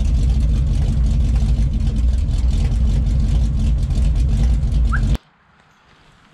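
Iron big-block V8 of a 1963 Ford F100 running steadily through its exhaust, a loud deep rumble with no revving. It cuts off abruptly about five seconds in, leaving faint outdoor quiet.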